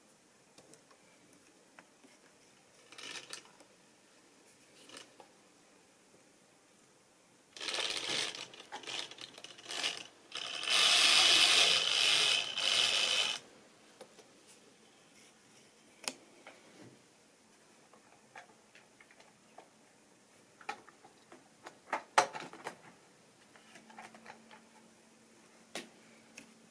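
Small clicks and knocks of model railway stock being handled on sectional track. About eight seconds in, a louder rough mechanical whirring lasts about six seconds and is loudest in its last three. Near the end a faint steady low hum starts.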